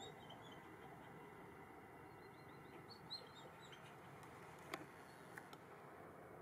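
Small birds chirping faintly in short, high calls over a quiet open-field background. A single sharp click cuts in nearly five seconds in, with a fainter one just after.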